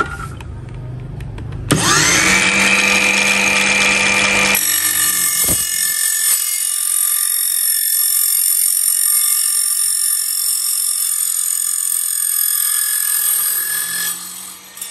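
Ryobi 18V cordless mitre saw with a 180 mm carbide-tipped steel-cutting blade. About two seconds in it spins up with a quickly rising whine and runs free briefly, then cuts through 30 mm square steel tube with a steady high-pitched ringing screech for about ten seconds. The sound dies away near the end as the cut finishes.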